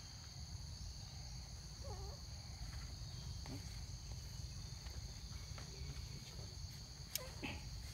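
Steady, high-pitched insect chorus over a low rumble, with a faint short call about two seconds in and a sharp click near the end.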